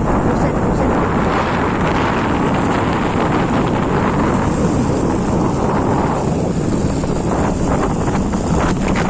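Wind buffeting the microphone during a ride: a loud, steady rush with no engine tone standing out, and some crackling from about six seconds in.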